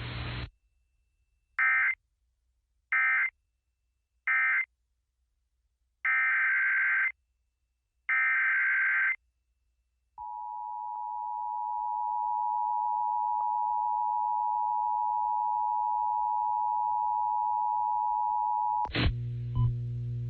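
Emergency Alert System signals: three short bursts of warbling digital data (the end-of-message code), then two longer data bursts of the next alert's header, then the steady two-tone EAS attention signal held for about nine seconds. A different sound with a low hum cuts in near the end.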